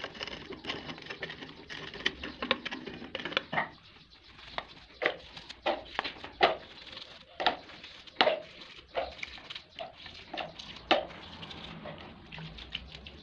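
Cast aluminium tap being dug out of casting sand and lifted: sand scraping and crumbling, with irregular sharp taps and clinks of the metal casting, the loudest spaced about every half second to a second in the middle of the stretch.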